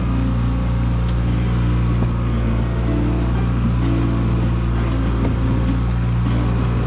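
Boat engine running steadily at a constant speed, a low, even hum with a hiss of wind and water above it.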